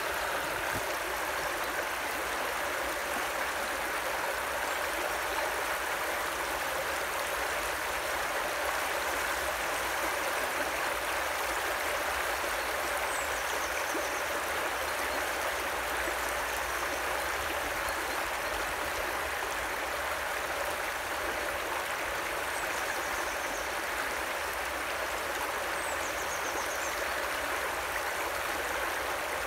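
Shallow river water running across a road ford and spilling over a low edge: a steady, unbroken rushing and trickling. A bird gives short high calls about five times in the second half.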